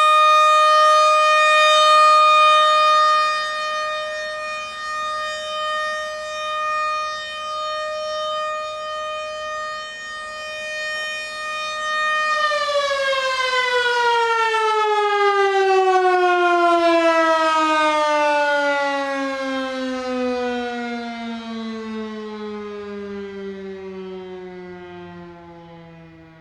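ACA PN-20 outdoor warning siren sounding its steady Alert tone, its loudness swelling and fading. About halfway through it shuts off, and the pitch falls in one long steady glide as the siren winds down, fading away near the end.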